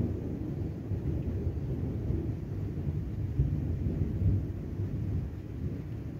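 Thunder rumbling low and rolling through the whole stretch, with no sharp crack.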